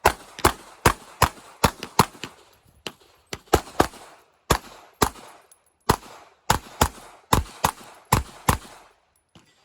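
Glock 26 9mm pistol firing rapid strings of about twenty shots, roughly two to three a second, with brief pauses between groups, each shot followed by a short echo.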